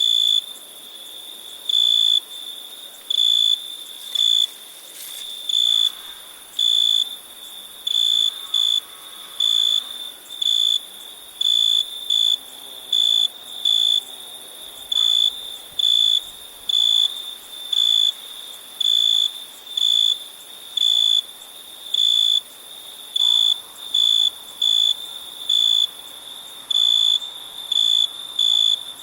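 Crickets chirping: one close cricket gives a clear, high, short chirp about once a second in an uneven rhythm. Behind it runs a steady very high-pitched trill of other insects.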